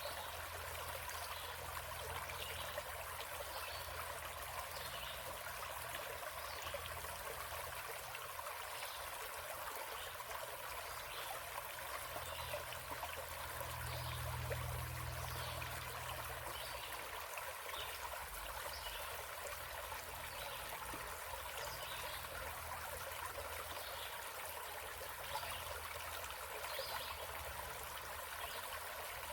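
A small stream flowing and trickling over rocks in a steady babble, with a low rumble underneath that swells briefly about halfway through.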